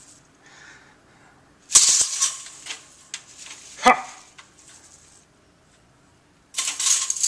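Venetian blind slats rattling and clattering as a bundle of dry straws is pushed against and through them. The rattle comes in two loud spells, one about two seconds in and another near the end, with a sharp click in between.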